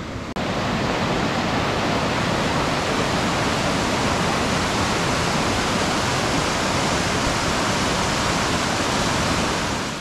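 Steady rush of falling water from a mountain waterfall, loud and even across all pitches.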